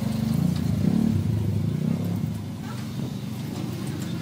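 Water poured from a plastic jug splashing onto a corrugated metal roof sheet, as a leak test on a patched joint. A steady low mechanical hum runs underneath and is the loudest sound.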